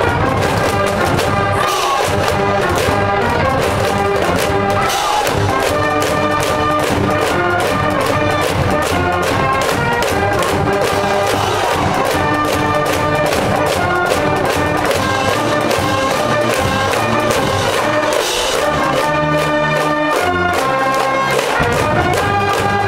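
School brass-band cheering section playing a fight song on trumpets and trombones over a steady beat.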